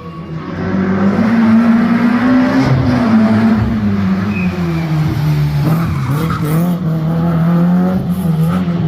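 A racing vehicle's engine held at high, fairly steady revs while its tyres skid and squeal without a break. The engine note climbs a little about two seconds in, then drops and holds, as in a burnout or drift show.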